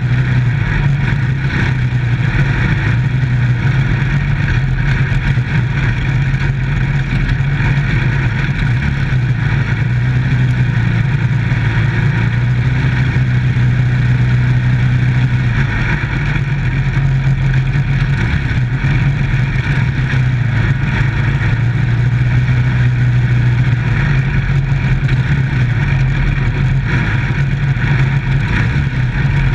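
Dirt-track microstock race car's engine running hard under load, heard from inside the cockpit. Its steady low note rises and falls slightly, with road and wind noise over it.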